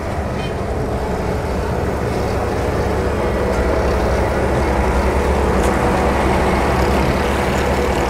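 Diesel engine of an asphalt paver running steadily while it lays asphalt, growing a little louder a few seconds in.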